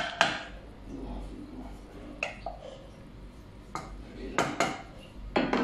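A wooden spoon knocking and scraping against the side of a ceramic-coated cooking pot of simmering rice, a few sharp knocks at a time in small clusters.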